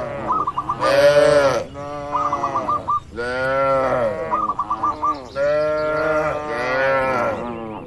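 Cattle mooing, several long drawn-out moos one after another. Between them a small bird chirps a short phrase that repeats about every two seconds.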